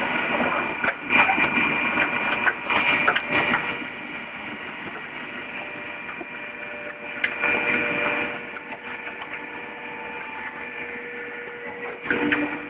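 Can-compactor press machine running with a steady motor hum while it crushes a metal paint can. Louder stretches of rattling and crunching come about a second in, lasting a few seconds, and again around seven to eight seconds in.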